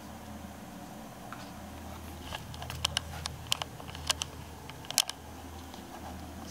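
A quick series of sharp clicks and taps, about a dozen in under three seconds, from a smartphone being handled and tapped while its passcode is entered, over a steady low hum.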